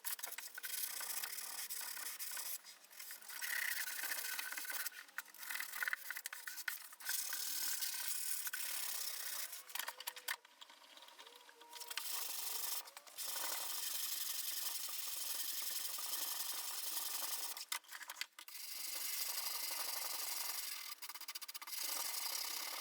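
Sandpaper rubbed by hand over a walnut box, a scratchy hiss in long spells of back-and-forth strokes broken by short pauses.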